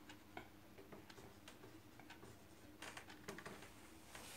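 Faint ticks and scratches of a marker writing on a whiteboard, with a small cluster of taps about three seconds in, over a near-silent room.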